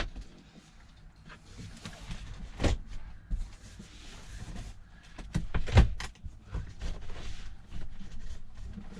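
Knocks, clicks and rustling from hands pulling and working at the rubber boot around a truck's gear shift lever, with the loudest knock about six seconds in.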